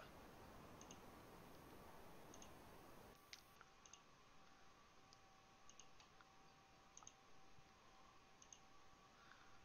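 Near silence with faint, scattered clicks of a computer mouse, about a dozen in all.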